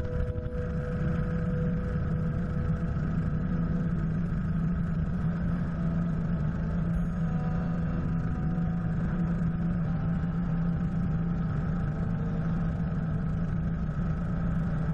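Helicopter turbine and rotor running at flight power during takeoff and climb-out, a steady low drone picked up by a camera mounted outside on the helicopter's nose.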